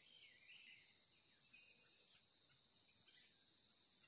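Faint, steady high-pitched drone of insects in the forest canopy, with a few softer, lower chirps drifting in and out.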